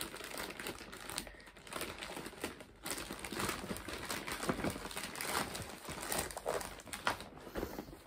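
Packaging crinkling and rustling in uneven bursts as a parcel is unwrapped by hand.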